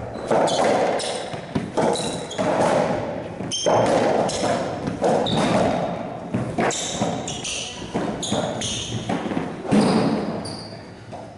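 Racquetball rally in an enclosed court: the ball strikes racquets and walls in a quick, irregular run of sharp hits, with many short high squeaks from shoes on the court floor. The hits thin out near the end as the rally stops.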